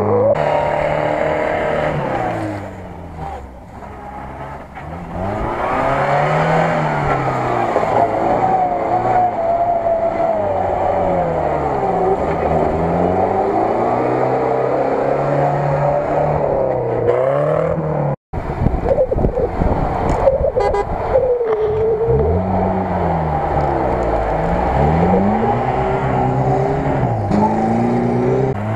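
UAZ-469 off-road vehicles' engines revving hard under load, their pitch rising and falling again and again. The sound dips for a couple of seconds early on and cuts out for a moment about two-thirds of the way through.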